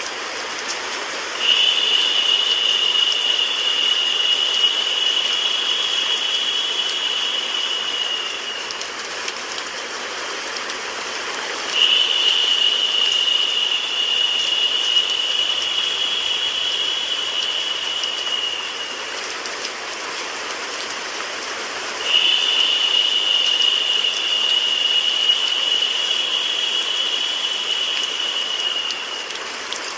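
Steady white noise mixed with rain. A higher, brighter hiss swells in three times, each lasting about seven seconds, roughly every ten seconds.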